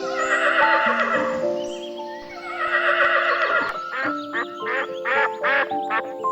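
Horse whinnying twice in long, wavering calls, then a duck quacking in a quick run of short calls from about four seconds in, over background music with held notes.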